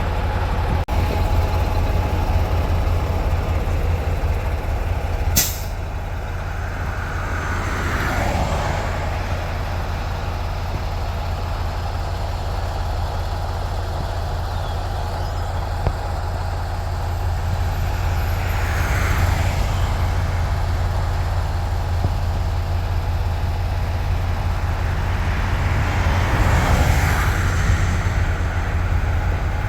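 Semi-truck on the road: a steady low engine and road drone. There is one sharp burst of noise about five seconds in, and the noise swells three times.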